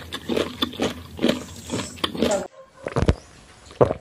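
Water poured from a plastic bottle into a glass, then a person gulping it down in a few short swallows in the second half.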